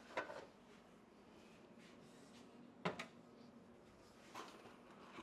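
Faint kitchen handling sounds: a metal baking sheet picked up and set down on a wooden counter. There is a small click at the start and one sharper knock about three seconds in.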